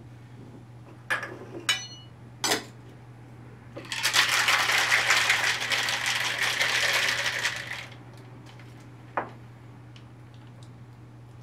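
Metal cocktail shaker being shaken hard for about four seconds, starting some four seconds in, its contents rattling against the metal. A few sharp knocks come before it and a single click after.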